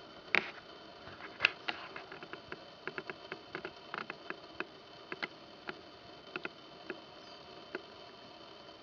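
Handling noise of a handheld camera during a slow pan: irregular sharp clicks and taps of fingers and grip on the camera body over a faint steady hiss, with two louder clicks in the first couple of seconds and the taps thinning out toward the end.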